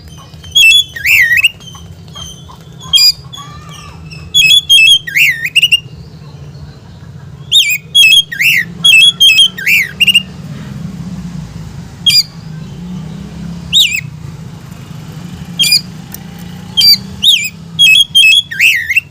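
Oriental magpie-robin (kacer) calling loudly in bursts of several sharp, swooping notes, with pauses of a second or two between groups. These are the agitated calls that set other magpie-robins off into an aggressive display.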